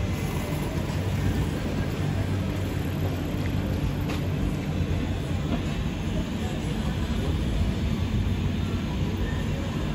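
Steady low rumble of city street background noise, with no distinct events.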